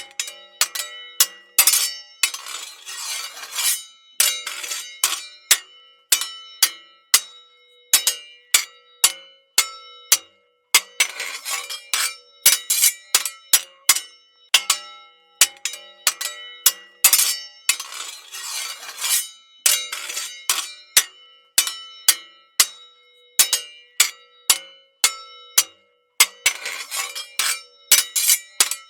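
Swords clashing in a sword fight: a rapid, irregular series of metal-on-metal strikes, each ringing on. Every several seconds a longer grinding scrape of blade sliding along blade comes in.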